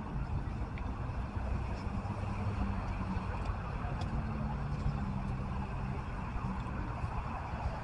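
Steady street traffic noise: a low rumble with the faint hum of car engines.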